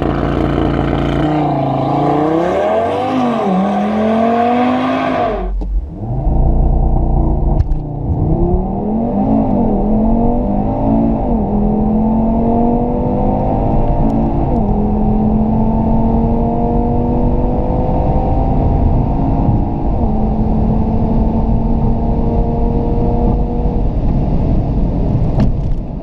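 2016 Audi TT RS's turbocharged 2.5-litre five-cylinder engine with sport exhaust at full throttle in a launch-control run. The revs are held briefly at the launch, then climb through the gears with a quick pitch drop at each dual-clutch upshift, the gears lasting longer as the speed passes 200 km/h. It is heard from outside the car at first, then from inside the cabin after a cut about six seconds in.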